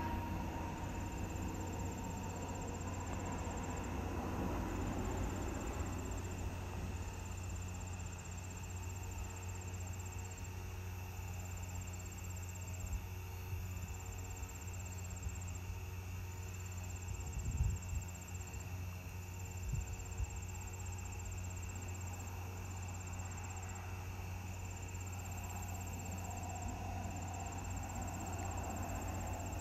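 Evening insect chorus: a high-pitched trill that repeats about every two seconds, each trill lasting a second or more, over a steady low rumble. Two brief low thumps come just past the middle.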